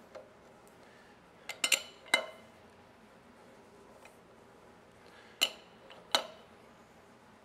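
Sharp metal clinks from a ratchet and a large adjustable wrench working the nut of a harmonic balancer installation tool, which is pressing the balancer onto a small-block Chevy V8's crankshaft. A quick cluster of three clinks and a fourth come about a second and a half in, and two more near the end.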